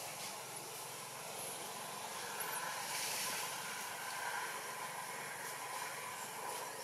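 Steady outdoor background noise with a distant engine hum that swells a little a few seconds in.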